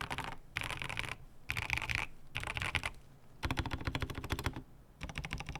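Typing on a mechanical keyboard: a Rama Kara with broken-in NK Cream linear switches on a polycarbonate plate. Quick runs of keystrokes, each half a second to a second long, are broken by short pauses, and one longer, denser run comes near the middle.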